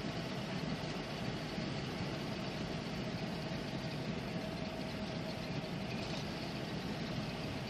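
Car driving along a paved highway: steady engine and tyre noise heard from inside the cabin, with a faint steady whine.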